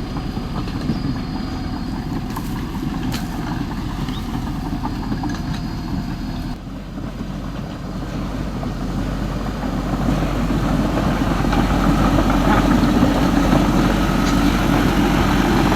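Remote-control toy excavator and bulldozer running, a steady mechanical hum; the sound changes abruptly about six and a half seconds in and grows louder from about ten seconds.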